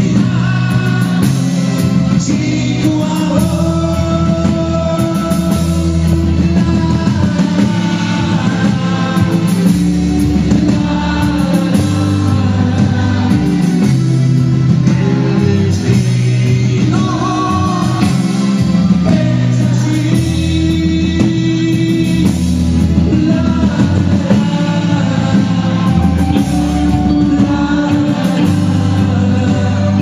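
Live pop-rock band of the nueva ola style playing, with a man singing the melody into a microphone over steady bass notes.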